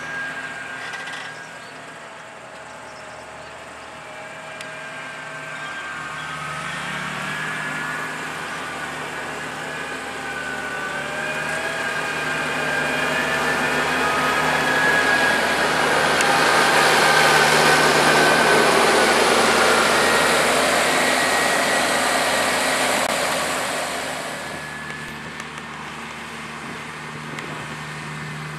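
Fendt tractor pulling a slurry tanker, its engine running with several whining tones that slide up and down in pitch. It grows louder as the rig drives past close by, loudest a little past the middle, then fades away.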